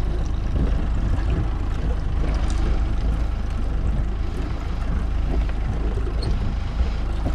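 Steady low rumble of wind buffeting the microphone on a small open boat at sea.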